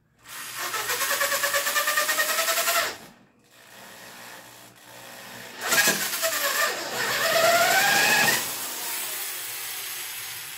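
Corded electric drill running in two bursts as the bit is passed through misaligned rear shock mounting holes in a motorcycle frame to bring them into line. The first burst lasts about three seconds with the motor speed rising; the second comes a couple of seconds later, its pitch dipping as the bit bites and then rising again.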